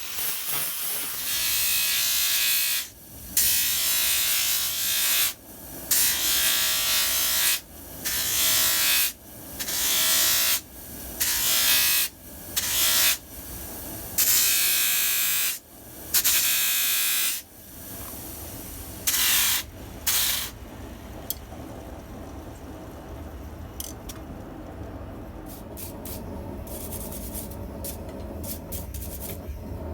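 Wire brush scrubbing over the forged steel tongs in a series of passes of a second or two each, with brief breaks between them, stopping about twenty seconds in. A low steady hum remains afterwards.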